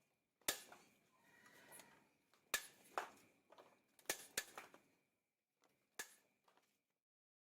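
A few short, sharp knocks and clicks, one to two seconds apart, with quiet between. They fit the rear of a Yamaha Xabre being pressed down and let back up by hand to test the swingarm. No creak is heard: the swingarm noise appears cured.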